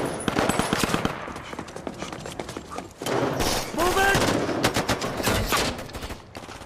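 Automatic rifle gunfire in rapid bursts, several guns firing over one another, with a short shout about four seconds in.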